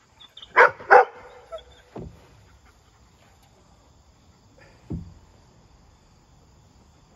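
A dog barks twice in quick succession, the two barks under half a second apart. Two dull single knocks follow, about two and five seconds in.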